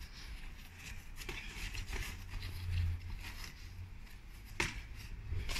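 Two boxers sparring on grass: faint scuffs and taps of footwork and gloves over a low rumble, with one sharper smack about four and a half seconds in.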